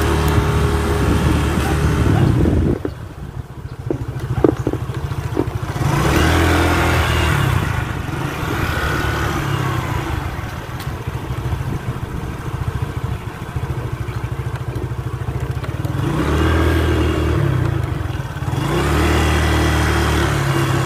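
A small motor scooter's engine running under way, its note rising and easing off several times as the throttle is worked. It drops to a low, pulsing note about three seconds in, with a few sharp clicks, then picks up again about six seconds in.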